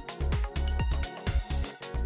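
Background electronic music with a steady beat and heavy bass.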